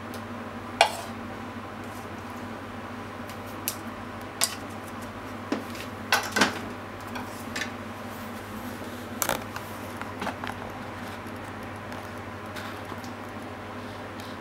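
Scattered sharp clinks and taps of a utensil against a ceramic bowl as stir-fried food is arranged in it. The sharpest comes about a second in and a cluster follows around six seconds, over a steady low hum.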